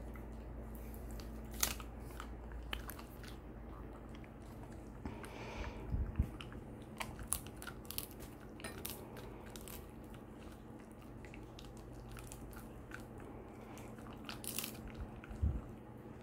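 A Shiba Inu chewing a large bone-shaped chew treat with its back teeth: irregular crunches and bites, loudest about six seconds in and again near the end.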